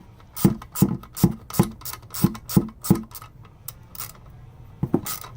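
Hammer tapping the valve spring retainers on a Honda K24 cylinder head to break the valve keepers loose: a run of about seven sharp knocks at roughly three a second, a pause, then two more knocks near the end.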